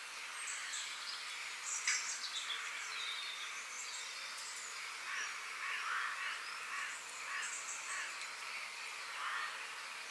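Forest ambience: many birds chirping and calling over a steady background of insects, with a louder call about two seconds in.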